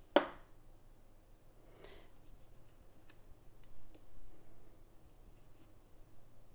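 Kitchen knife cutting segments from a peeled orange on a cutting board: one sharp knock of the blade on the board just after the start, then a few quieter cuts and light taps.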